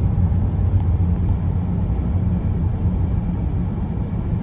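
Steady low rumble of a moving car, heard from inside its cabin: road and engine noise.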